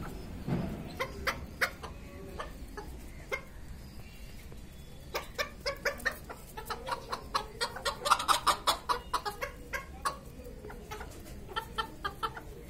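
Chabo (Japanese bantam) chickens clucking: short clucks in quick runs, busiest and loudest around eight seconds in.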